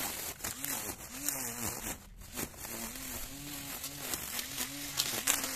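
Cordless battery-powered Laxton string trimmer cutting grass: a buzzing motor whose pitch rises and falls about twice a second, with a crackle of the nylon line slashing through grass.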